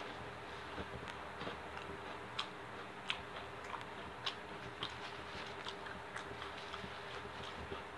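Close-miked chewing of food: irregular wet clicks and small crisp crunches from the mouth, over a faint steady hum.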